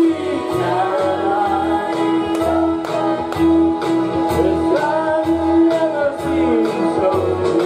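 Karaoke backing track playing over a PA with a steady beat and bass, and a man singing along into the microphone.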